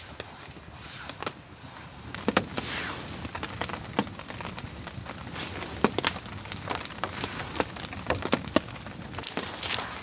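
Campfire of damp, rotten sticks and fire starters crackling with irregular sharp pops as it catches, over a steady hiss of rain.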